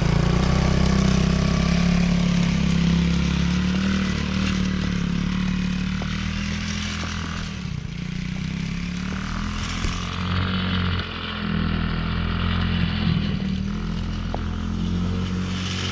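Small 110cc ATV's single-cylinder four-stroke engine running at steady revs, its note dipping and bending briefly about halfway through.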